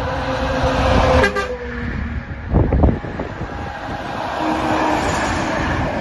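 Multi-tone air horn on a passing Scania truck blowing a long chord that cuts off about a second and a half in, its pitch sagging as it stops. It sounds over the heavy rumble of trucks going by, with a loud gust of rumble and wind on the microphone about two and a half seconds in.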